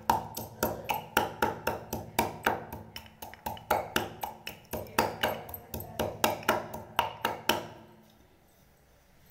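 Ginger being crushed with a wooden rolling pin in a metal tumbler: a steady run of sharp knocks, about three a second, with a slight metallic ring. The pounding stops about seven and a half seconds in.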